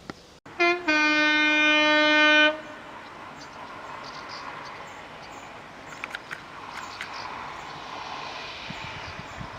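Train horn sounding a short higher note and then a long lower note lasting about a second and a half, followed by the rushing noise of the train passing along the track, with a few sharp clicks.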